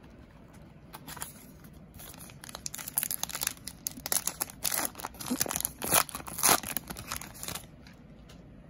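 A 2009 Upper Deck Goudey baseball card pack's wrapper being torn open by hand and crinkled: a run of sharp crinkling tears that starts about a second in and stops shortly before the end.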